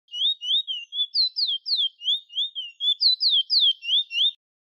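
Chestnut-bellied seed finch (Trinidad bullfinch) singing a fast run of clear, high whistled notes, about three a second, each a quick slur up or down. The song stops abruptly near the end.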